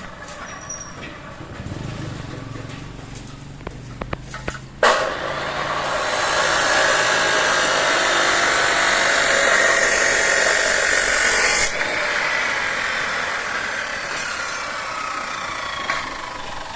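Construction work: a low engine hum and a few sharp knocks, then about five seconds in a loud, steady hissing noise from the work starts abruptly. It is strongest for several seconds, then eases off somewhat but continues.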